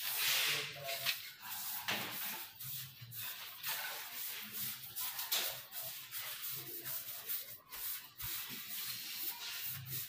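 Hand sanding of a varnished wooden door panel: repeated scratchy rubbing strokes of abrasive on wood, uneven in pace.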